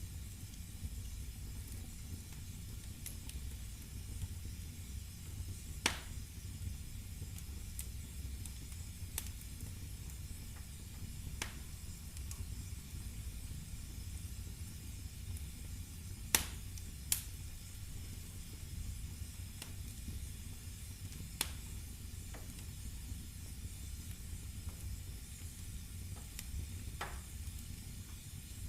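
Firewood burning in a fireplace: a steady low rumble and hiss of the flames, with about six sharp crackles and pops scattered through, the loudest two close together just past the middle.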